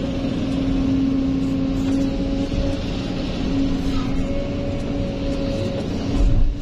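Kobelco SK200 excavator's diesel engine and hydraulics working under load, heard from the cab with a steady whine, as the bucket of dirt is lifted and dumped into a dump truck. A low thump comes near the end.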